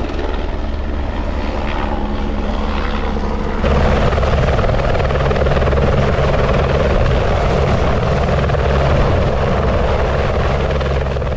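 Helicopter running close by, a steady, loud rotor beat over engine noise. It gets abruptly louder about three and a half seconds in and stays that way.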